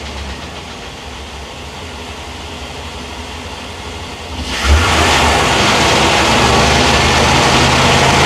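Gasoline V8 of a 2001 Workhorse P42 running near idle, then revved up sharply about four and a half seconds in and held at higher speed. The engine is being diagnosed for a random misfire.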